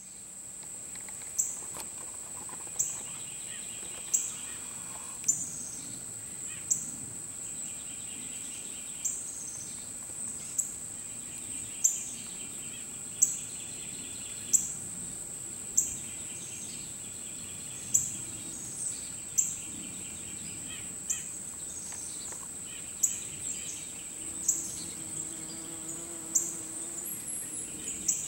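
Outdoor insect chorus: a steady high-pitched drone, with a sharp tick about every second and a half and short chirping trills in between.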